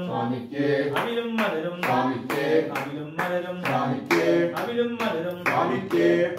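Men's voices singing a devotional chant together, accompanied by steady rhythmic hand-clapping, a few claps a second.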